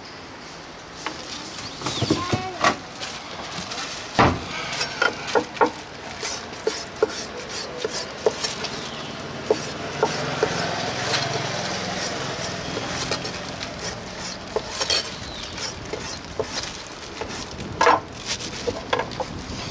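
Food-preparation clatter: irregular knocks and clinks of utensils and dishes, with a sharper knock about four seconds in and again near the end.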